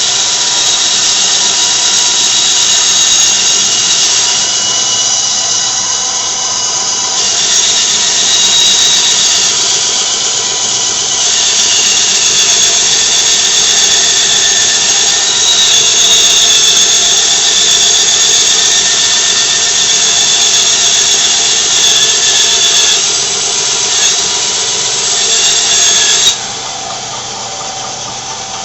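Bandsaw cutting through a thick glued-up oak block with an old, dull blade, giving a loud, steady, high-pitched squeal that shifts in pitch as the cut goes on. The squeal stops sharply near the end.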